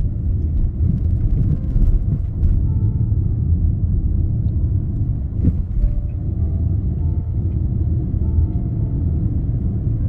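Car driving along a paved road, heard from inside the vehicle: a steady low rumble of engine and tyre noise.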